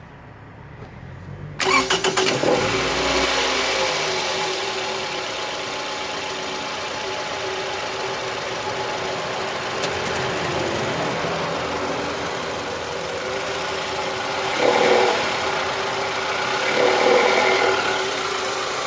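Toyota Camry engine starting about a second and a half in, then idling steadily, with two brief swells in level near the end. The owner says the engine makes an odd noise only when it is cold.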